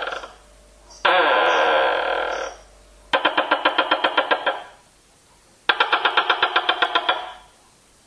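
Tokay gecko calling. One sustained harsh call about a second in is followed by two loud rapidly pulsing trills, each about a second and a half long, with short gaps between them.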